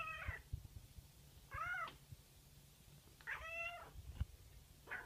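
Domestic cat meowing four times, short calls that rise and fall in pitch, about one every second and a half. Faint low knocks sound underneath.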